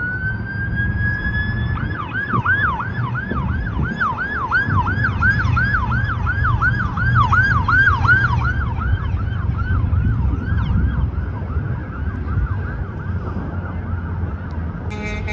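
Police car siren: one rising wail, then a fast yelp of about three sweeps a second that grows fainter after about nine seconds, over a low rumble of traffic.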